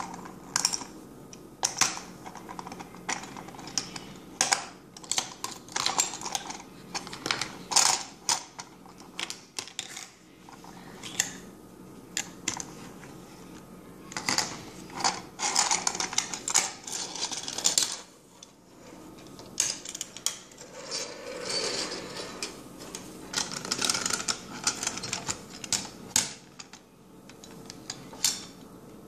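Plastic toy quarry playset being handled: irregular clicks, clacks and knocks as its lift, ramp and other plastic parts are moved and a toy engine is set down and pushed across it.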